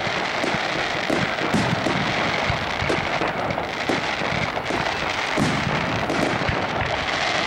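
Aerial fireworks going off in a dense, unbroken barrage: continuous crackling with many bangs of shells bursting.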